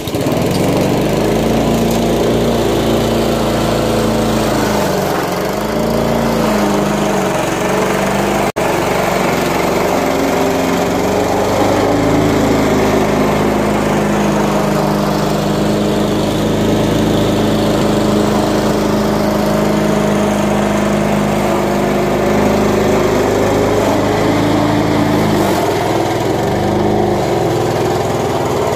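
Gasoline push lawn mower running under load as it cuts grass, its engine pitch dipping and recovering a few times as it meets thicker grass. It cuts out for a moment once, about eight seconds in.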